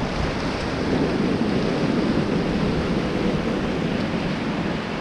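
Steady rush of whitewater on the Beas River around a raft.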